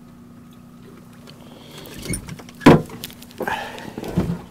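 Knocks and thumps on a fishing boat's deck and live well, the loudest a sharp thump a little under three seconds in, with a few smaller knocks after it, over a faint steady low hum.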